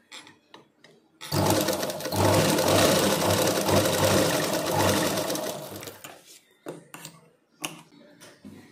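Sewing machine running steadily for about five seconds as it stitches a collar onto cotton fabric, with a pulsing beat, then slowing and stopping. A few sharp snips of scissors trimming the threads follow near the end.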